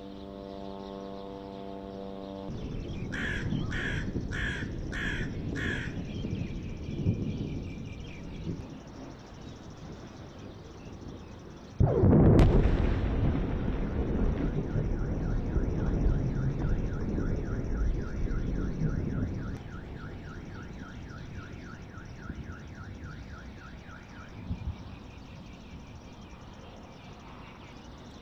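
Distant explosions over Gaza: a sudden loud blast about twelve seconds in, followed by a deep rolling rumble that lasts several seconds, with a lower rumble earlier. Five evenly spaced high pulses sound a few seconds in, and a fast repeating high chirp runs through the middle of the rumble.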